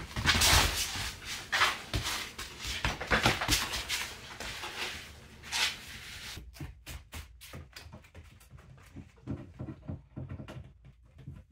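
Large-breed puppy moving about on tatami mats: dense scuffling and scrabbling of paws and body. About six seconds in it gives way to lighter, separate taps and clicks.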